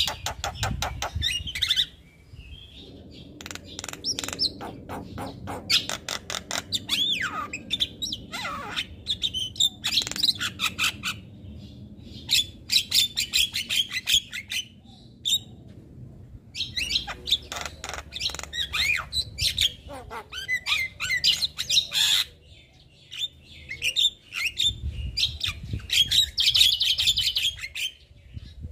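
Javan myna (jalak kebo) singing: rapid runs of harsh clicking, chattering and squawking notes mixed with a few whistled glides in pitch, broken by brief pauses.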